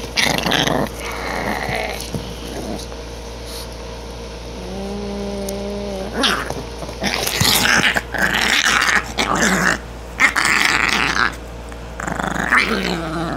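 Small dog growling in play in short, irregular bouts while it mouths and bites at a hand.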